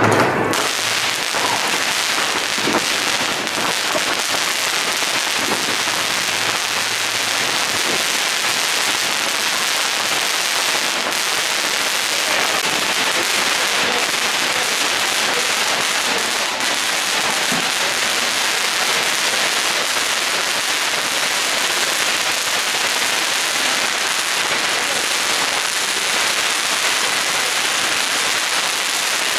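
Linked sets of colour-ball (彩珠) fireworks going off nonstop. Countless small pops and hisses run together into a dense, steady crackle like heavy rain, with no single big bang standing out.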